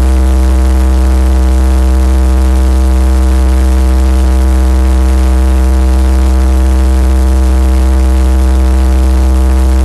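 Robinson R22 Beta II helicopter running on the ground, heard from inside the cabin: its four-cylinder Lycoming piston engine and rotors make a loud, steady hum with a strong low drone and no change in pitch.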